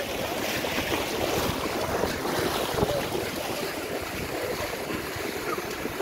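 Many feet splashing steadily as a group runs through knee-deep shallow water, with wind buffeting the microphone.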